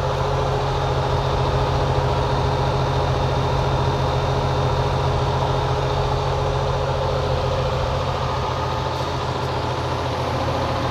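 Goodman air-conditioner condenser unit running: a steady low hum with a few steady higher whining tones above it. This is the fan noise the owner cannot place between the fan blades and the fan motor.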